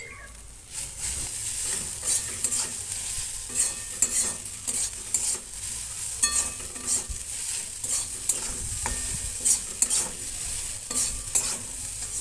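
Long metal spatula stirring and scraping boiled grated potato into a fried onion, carrot and spice mixture in a metal kadai, with repeated scrapes against the pan over a light frying sizzle.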